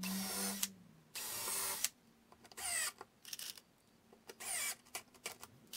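Cordless drill boring into a plywood board in two bursts of about a second each, followed by shorter, softer whirs and a few light clicks.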